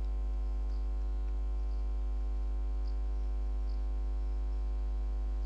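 Steady electrical mains hum: a constant low drone with a stack of higher overtones, and a few faint ticks.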